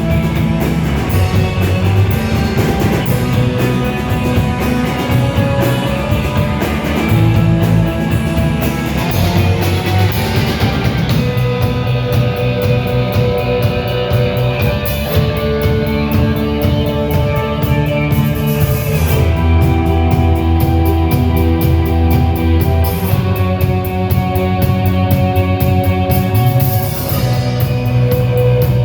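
Rock music with guitar and drums: held chords that change every few seconds over a steady, fast beat.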